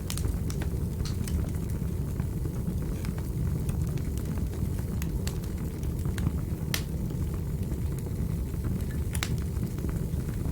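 Wood fire in a fireplace crackling: a steady low rumble of burning with sharp pops and snaps at irregular intervals, now and then a louder snap.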